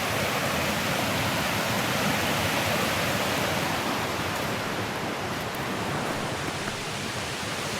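Steady rush of water from a mountain stream.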